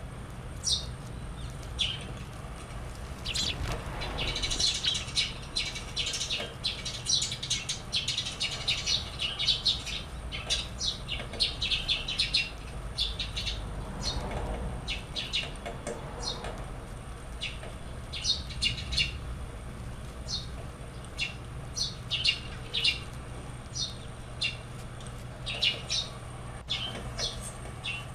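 Small bird chirping over and over in short, sharp high notes, thickest in a busy run a few seconds in, over a steady low hum.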